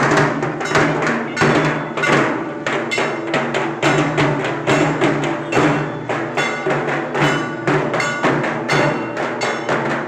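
Dhak drums, the large barrel drums of Durga Puja, beaten with sticks in a fast, steady repeating rhythm.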